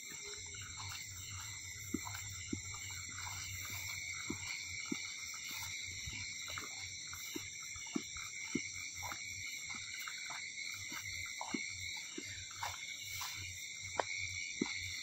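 Night chorus of insects trilling steadily at several high pitches, with frogs calling in short croaks scattered throughout.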